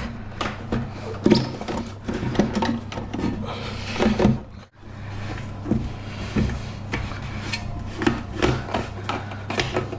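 Irregular knocks, clicks and scraping as a toilet syphon assembly is handled and fitted into the cistern, over a steady low hum.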